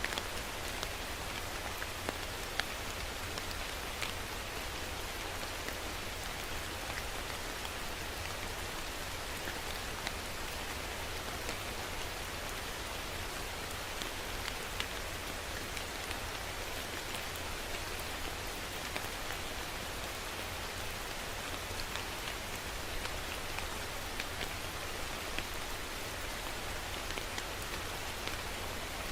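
Steady rain falling, with many individual drops ticking sharply on a surface over the constant hiss.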